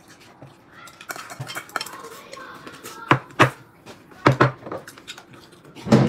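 Tableware clinking during a meal: chopsticks and spoons knocking against bowls and plates in a series of sharp clinks, the loudest near the end.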